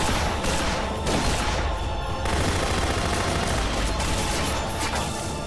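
Sustained rapid gunfire from pistols and submachine guns, many shots overlapping in a dense, continuous volley, as a film gunfight sound effect.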